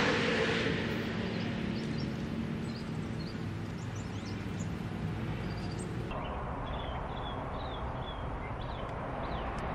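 Outdoor background: the rushing noise of a passing engine fading away over the first couple of seconds, then a steady low hum with small birds chirping now and then.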